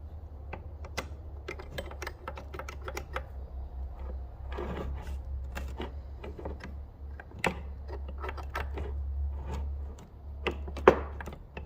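Irregular light clicks and taps of small metal parts being handled as a starter switch is fitted on a tractor, over a steady low hum.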